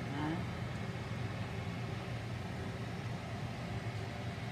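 Steady low hum of a running kitchen fan, with an even hiss above it.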